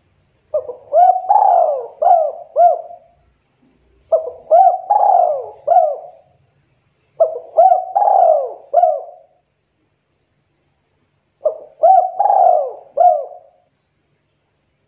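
Spotted dove (tekukur) cooing in the 'kuk 2' song style: four phrases of a few low, arching coo notes each, about two seconds long and a second or two apart, with a longer pause before the last.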